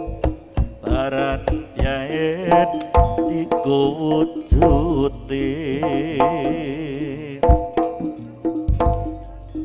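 Live Javanese jaranan music: kendang hand-drum strokes and gong-chime accompaniment under a melody with strong vibrato.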